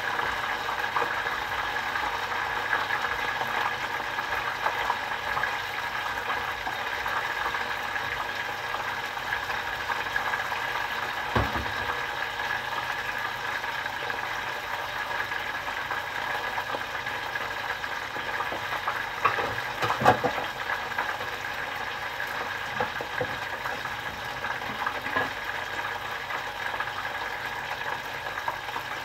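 Karaage (Japanese fried chicken) deep-frying in a pot of oil: a steady sizzle with fine crackling. There is a short knock about eleven seconds in and another at around twenty seconds.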